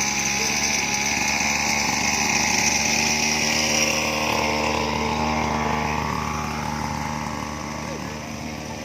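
Battery-powered toy fishing game running, its small motor whirring steadily as the pond turns; the sound eases off slightly near the end.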